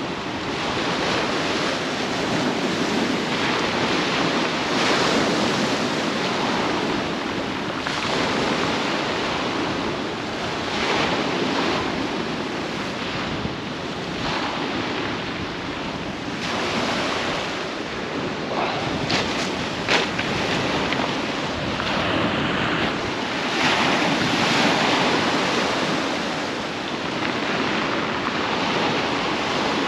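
Waves breaking and washing on a shingle beach, rising and falling, with wind buffeting the microphone. Two short sharp clicks come about two-thirds of the way through.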